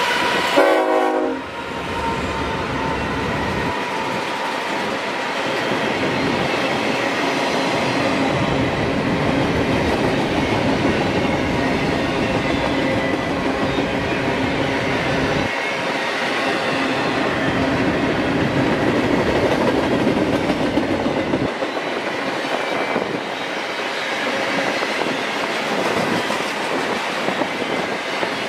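Horn of a BNSF freight train sounding and cutting off about a second in, then the steady rumble and clatter of double-stack container well cars rolling past.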